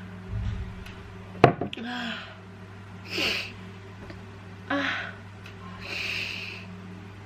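A person with a cold sneezes once, sharply and loudly, about a second and a half in. This is followed by several short sniffs and gasping breaths.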